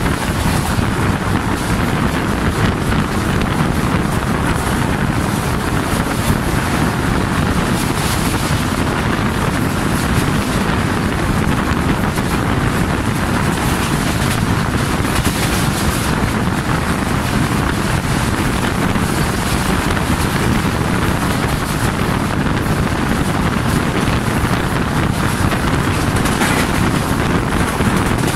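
Wind rushing over a microphone held out of a moving passenger train, over the steady rumble of the coach running along the track at speed.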